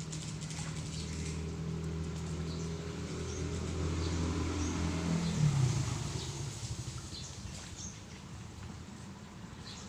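A motor engine passing by, its low hum building to its loudest about five and a half seconds in and then fading away, with birds chirping.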